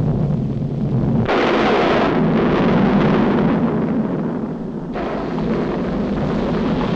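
Cartoon sound effect of a volcano erupting: a loud, continuous rumbling roar. It starts suddenly and swells brighter about a second in, then eases a little near the five-second mark but keeps going.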